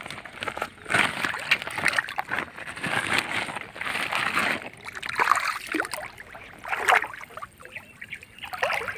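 Pond water sloshing and splashing in irregular surges around a person wading chest-deep and handling a fishing net in the water.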